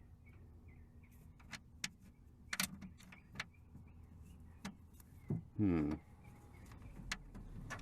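Scattered light clicks and knocks as a replacement car speaker is pushed and worked onto its mounting post in a pickup's interior panel, the post not yet seating. A short murmur from the worker comes about two-thirds of the way through, over a steady low hum.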